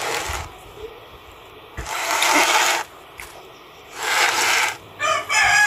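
Three short rushes of noise about two seconds apart, then a rooster starts crowing near the end.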